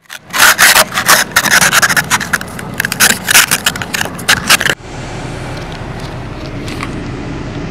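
A quick run of loud, rough scraping strokes that stops abruptly after about four and a half seconds, giving way to a steady low rumble.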